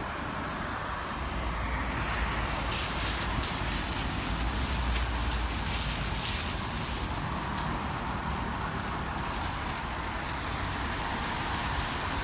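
Typhoon wind and rain: a steady rushing noise with a deep rumble on the microphone that swells about a second in and eases after about six seconds, with a few brief hissing gusts.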